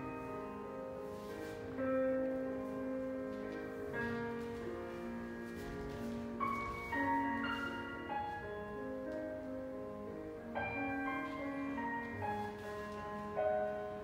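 Classical piano music, held chords and melody notes changing every second or two.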